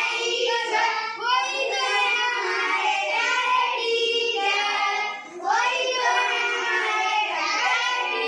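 A group of children singing a song together, with a short break between lines about five seconds in.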